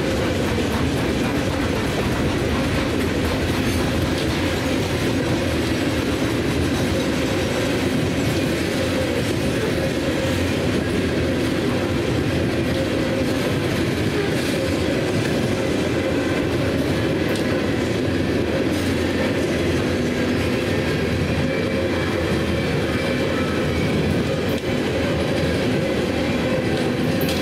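CSX coal train's hopper cars rolling steadily past at close range: a continuous rumble and clatter of steel wheels on the rails.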